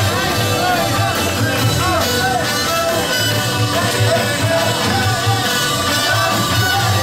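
Upbeat rock band music with a melody line over a steady beat, played over loudspeakers in a ride's pre-show.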